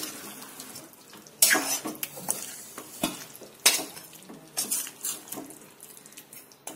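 Spatula stirring thick, nearly dry chicken masala in a pan, with irregular scrapes and knocks of the spatula against the pan.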